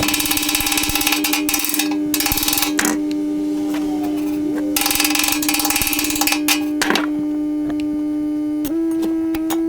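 Electric angle grinder running and grinding metal in several loud stretches. The motor's whine sits lower while it is pressed into the work and steps back up near the end as the load comes off.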